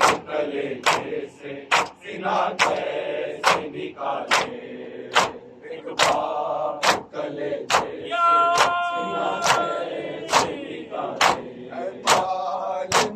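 Men chanting a nauha together while beating their chests in matam, a sharp slap of hands on chests keeping an even beat a little faster than once a second. One voice holds a long note about eight seconds in.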